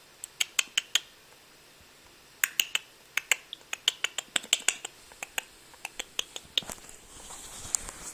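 A Bichon Frise puppy's claws clicking on a hard floor as he moves about: quick runs of sharp clicks, about five or six a second, in several bursts with short pauses between.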